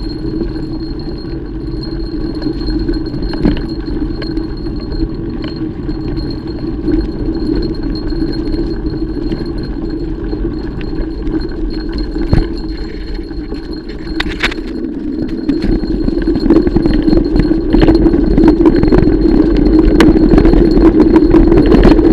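Mountain bike rolling over a trail: steady tyre and riding noise with the bike rattling and clicking over bumps, a few sharper knocks. It gets louder from about two-thirds of the way through.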